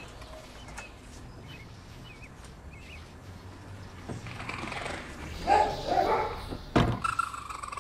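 Raccoon kit calling with a series of pitched cries in the second half. There is a sharp knock near the end.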